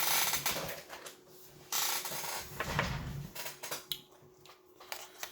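Small radio housing parts being handled and slid on a workbench: rubbing and scraping, with a few light clicks near the end.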